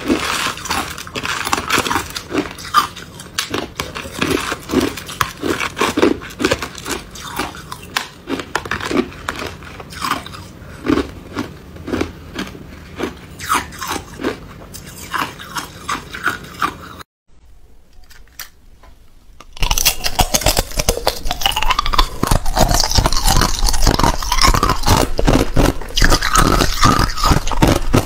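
Ice being bitten and chewed, one or two crunches a second. After a near-silent break of about two seconds two-thirds of the way through, a bite into a slab of clear hard ice gives louder, denser crunching.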